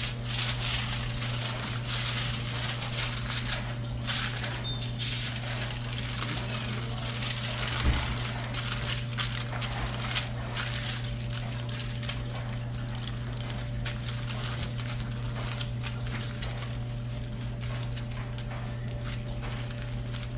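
Aluminium foil crinkling and crackling in irregular handfuls as it is folded and crimped by hand into a sealed packet, busiest in the first half, with one dull knock on the counter partway through. A steady low hum runs underneath.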